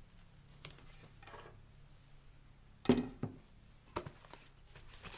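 Packaging being handled during an unboxing: a few sharp knocks and light rustling, the loudest knock about three seconds in.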